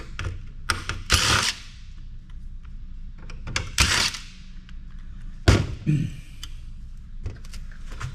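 Cordless driver spinning Phillips screws out of a circuit board in two short bursts, with small clicks of handling between. A sharp knock about five and a half seconds in.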